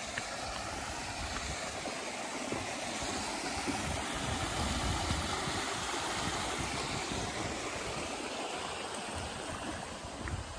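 A small rocky stream running and splashing over stones, swelling toward the middle and easing off near the end. Soft footsteps thud underneath.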